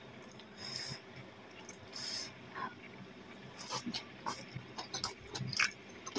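A person eating with their fingers close to the microphone: a few short breathy hisses in the first half, then wet chewing with quick mouth and finger clicks once the food goes in.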